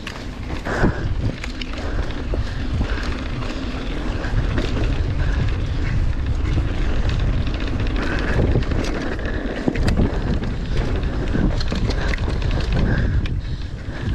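Mountain bike descending a dirt trail at speed: wind buffeting the microphone over a low rumble of tyres on the ground, with frequent clicks and knocks from the bike rattling over bumps.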